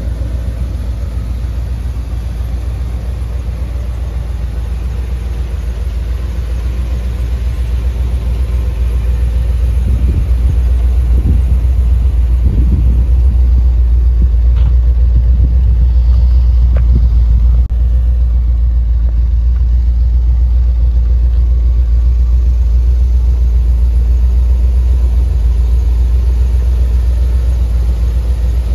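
1981 Corvette's 350 V8 idling steadily through its turbo-muffler exhaust, a low, even rumble that grows a little louder about a third of the way in.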